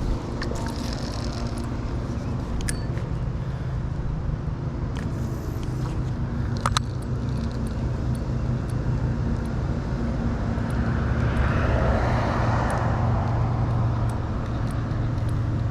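Road traffic: a steady low rumble with a car passing, loudest about twelve seconds in, and a few sharp clicks along the way.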